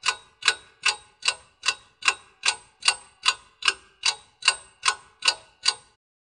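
Steady ticking: about two and a half sharp ticks a second, each with a brief ring, fifteen in all, stopping abruptly near the end.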